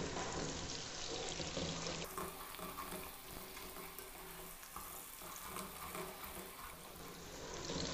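Potato wedges and onions frying in oil in an aluminium pot over a low-to-medium flame: a faint, steady sizzle, with a wooden spoon stirring through them.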